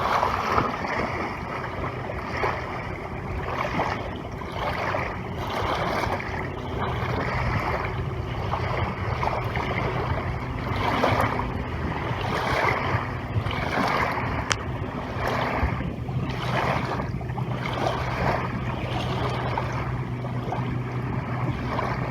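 Lakeshore ambience: a rushing, gusty wash of wind and lapping water that swells and fades every second or so, over a steady low hum.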